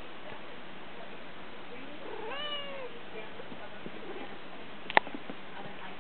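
A domestic cat gives one short meow about two seconds in, its pitch rising and then dropping slightly. A single sharp click follows near the end.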